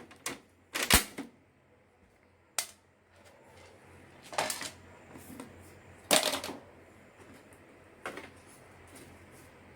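Plastic parts of an HP PSC 1610 all-in-one printer clicking and clattering as they are pried off and handled. There is a sharp knock about a second in, then scattered clicks and two short rattles.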